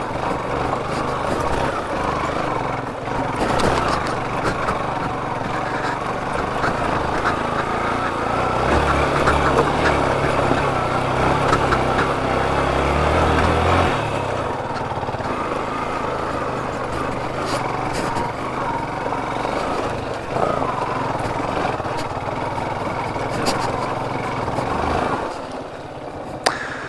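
Yamaha FZ motorcycle's single-cylinder engine running as it is ridden over a rough off-road dirt track, with a steady rushing noise over it. The engine works harder for several seconds about a third of the way in, then eases off.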